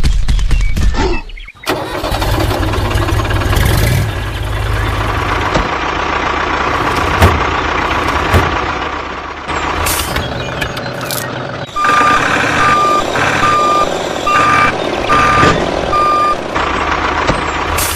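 Truck or tractor engine running, with a brief break about a second and a half in. Near the end a reversing alarm beeps about six times at a steady pitch.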